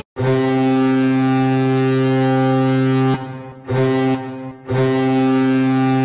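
Colorado Avalanche arena goal horn sounding in a deep, steady tone: one long blast of about three seconds, a short blast, then a third longer blast.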